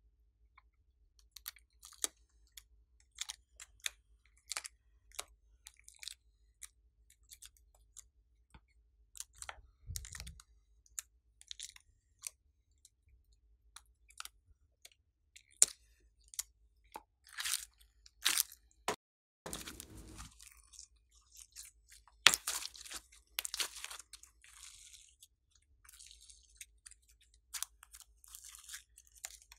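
Plastic holographic sequin decorations crinkling and clicking as they are peeled off slime and pressed onto slime, in irregular sharp clicks with short bursts of crackling; near the end, glossy slime is pulled and stretched with sticky, wet sounds.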